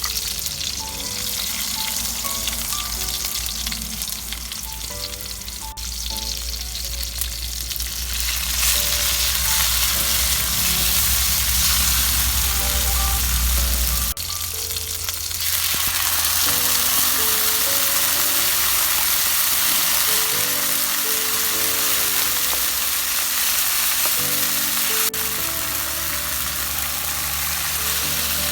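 Vegetables sizzling as they sauté in a hot pan, the sizzle getting louder partway through, with light background music over it.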